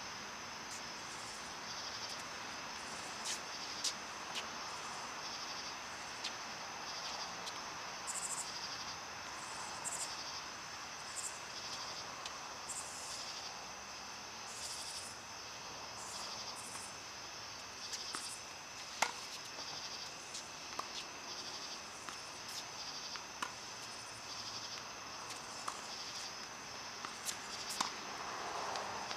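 Insects chirring steadily, with pulsing high chirps that repeat every second or two, over a soft outdoor hiss. A few short sharp knocks are scattered through, the clearest about two-thirds of the way in.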